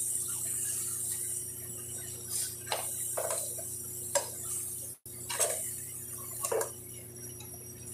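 A metal ladle stirring thick stew in a stainless steel pot, clinking against the pot's rim and side several times, over a steady background hum. The stew is being stirred so it does not stick and burn as it thickens.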